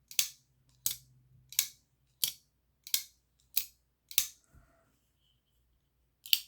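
Sharp metallic clicks from a folding pocketknife's blade and lock being worked repeatedly, about one every two-thirds of a second. Seven come in a row, then there is a short pause and one more near the end.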